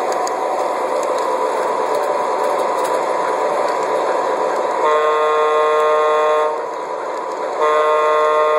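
Suspended model train running along its track with a steady rolling whir, sounding its horn twice: a blast of about a second and a half near the middle, and a second blast starting about a second later that runs on past the end.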